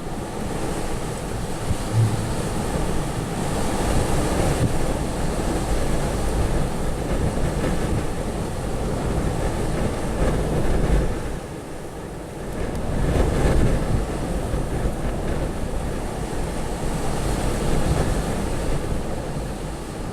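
Storm-force wind of a European windstorm blowing in gusts, swelling and easing with a short lull about twelve seconds in, and buffeting the microphone with a low rumble.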